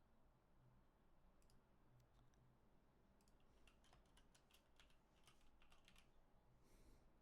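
Near silence with faint, scattered computer keyboard and mouse clicks, coming more often in the second half.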